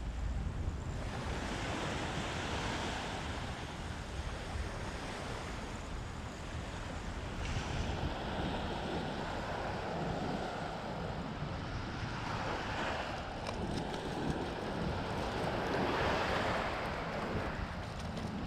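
Sea waves breaking and washing on the shore, swelling and easing several times, with wind rumbling on the microphone.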